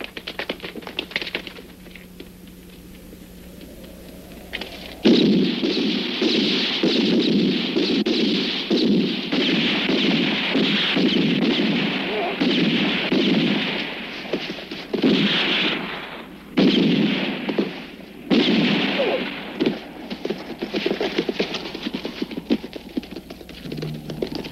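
Rapid, sustained machine-gun fire that breaks out abruptly about five seconds in, after a quiet low hum. It keeps going in long, dense bursts with two short breaks in the second half.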